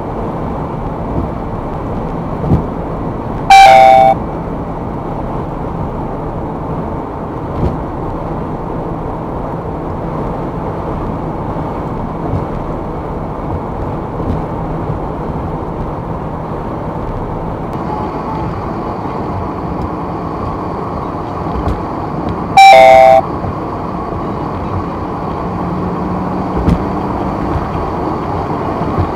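MiVue 792 dashcam's alert beep sounding twice, briefly and loudly, many seconds apart, over steady road and engine noise in a Porsche 944's cabin at speed. The beep is the camera's impact sensor taking road bumps for a collision.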